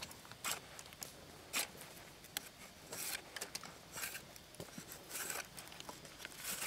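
A knife being worked down the split in a wooden stick to make a skewer: faint, irregular scraping and cracking strokes, roughly one a second.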